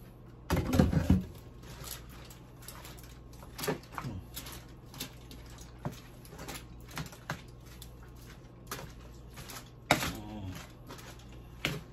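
A plastic spatula scraping and tapping in a disposable aluminium foil tray while marinade is worked through pieces of pork bone, with scattered small clicks and foil crinkles. There is a low thump about half a second in.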